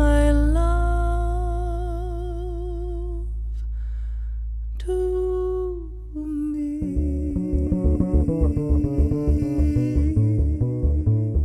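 Jazz duo of female voice and upright double bass: the singer holds long notes with vibrato over a sustained low bass note. About seven seconds in, the bass starts a run of quick plucked notes under another long held sung note.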